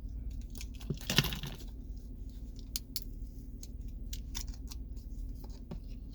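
A key fob and small parts being handled: a short rustle about a second in, then scattered small clicks and light jingles.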